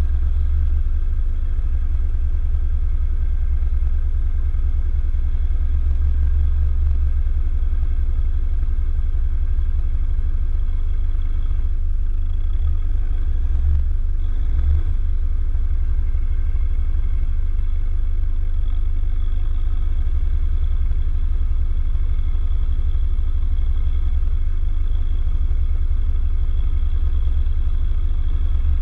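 Toyota Hilux Vigo's engine idling: a steady low rumble picked up through the bonnet the camera is mounted on.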